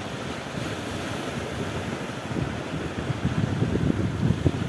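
Wind buffeting the microphone, gusting harder from about halfway through, over the wash of small waves breaking on a shoreline.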